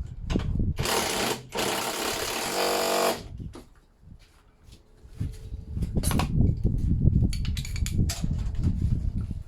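A power tool run in two short bursts about a second in, the second ending in a fast rattle, followed by irregular knocks and clunks of work on the engine.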